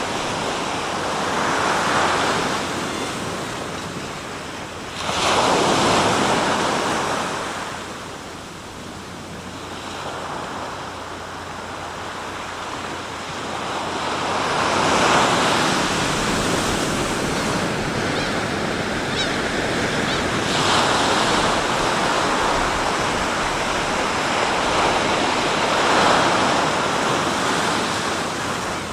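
Sea waves breaking and washing on the shore, the surf swelling and ebbing every few seconds, with wind on the microphone.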